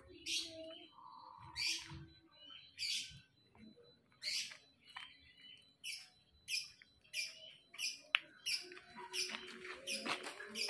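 Birds chirping: short high chirps about once a second, coming faster, about two a second, in the second half. A single sharp click about eight seconds in.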